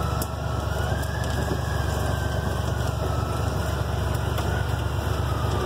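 Utility vehicle's engine running steadily as it rolls down a steep slope on the brakes, with a faint high whine that rises slowly and sinks back.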